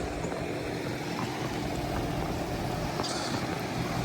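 A machine running with a steady low hum, joined by a short hiss about three seconds in.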